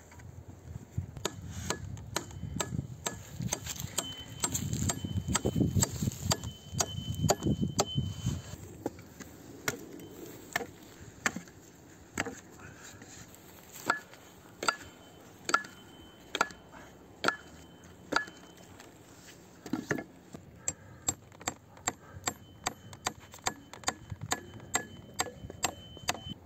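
Hatchet blows on pine wood: a long series of sharp wooden knocks, densest and loudest about four to eight seconds in, then single strikes every half second to a second.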